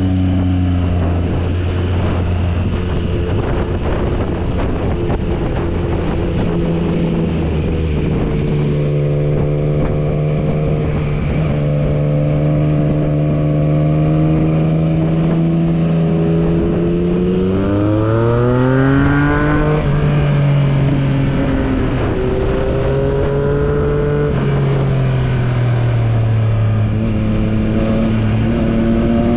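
Yamaha MT-09's inline three-cylinder engine running under way on a winding road, with wind rushing past. About eighteen seconds in its note climbs sharply as the throttle opens, then drops back and rises and falls again with the throttle.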